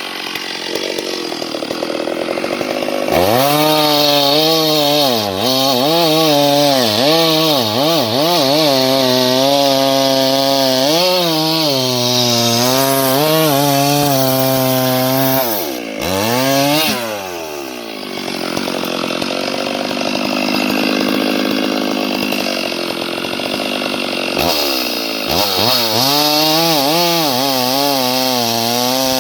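Chainsaw running at high speed and cutting wood, its pitch wavering under load. About halfway through it falls off, revs once, and runs at a lower speed for about six seconds before revving back up.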